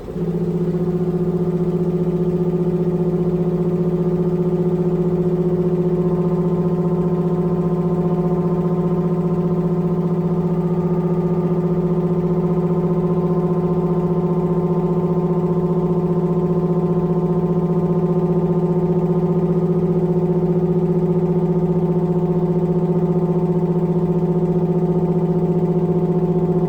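Hitachi BeatWash washing machine giving off a loud, steady droning tone of constant pitch that sets in abruptly: the abnormal noise the owner takes as a sign that the machine is about to break down.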